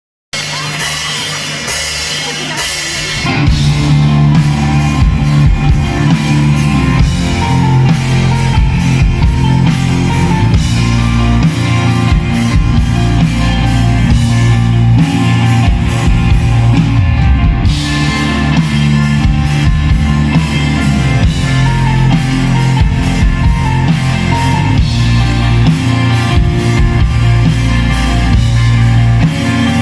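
Rock band playing live: electric guitar, bass guitar and drum kit through the stage PA, instrumental with no singing. After a quieter opening, the full band comes in loud about three seconds in.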